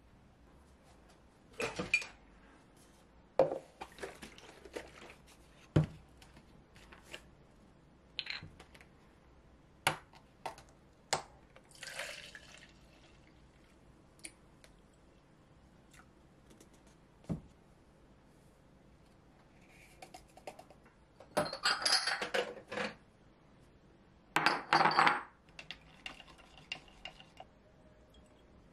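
Kitchen handling sounds while making yogurt: scattered clinks and knocks of glass jars and a plastic measuring jug on a countertop, with milk being poured and stirred. The loudest parts are two spells of about a second each, near the end.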